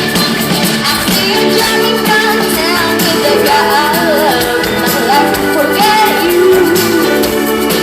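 A pop band playing live with a singer's voice over the instruments.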